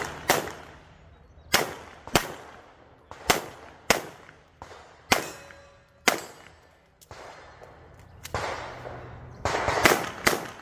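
Pistol shots, about ten, mostly in pairs a little over half a second apart, each trailing off in a short echo, with a longer pause of a few seconds before a quicker string near the end.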